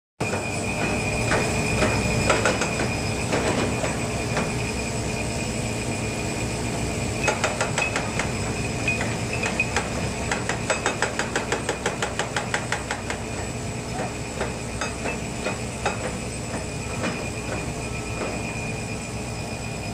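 Hydraulic pile breaker worked by an excavator: steady engine and hydraulic running noise with a constant high whine, and a run of sharp metallic clacks and knocks, quick and dense through the middle and sparser towards the end.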